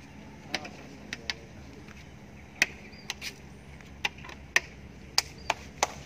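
About a dozen sharp, short clicks and taps at irregular intervals, over a faint steady low hum.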